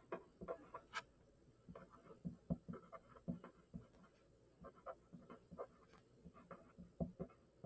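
Pen writing on paper: faint, irregular short scratching strokes as words are written out.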